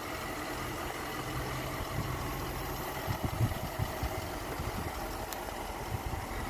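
Range Rover Sport's 4.4 V8 turbo diesel idling steadily, a low even hum, with a few low thumps about halfway through.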